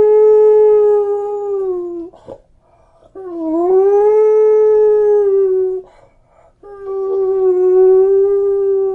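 A dog howling: three long, drawn-out howls with short pauses between them, the first already under way. Each is held at a steady pitch for two to three seconds; the middle one dips and rises as it begins.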